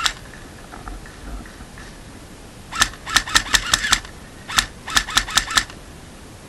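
Airsoft gun firing: one sharp shot at the start, then two quick strings of shots, about seven and then about five, several a second.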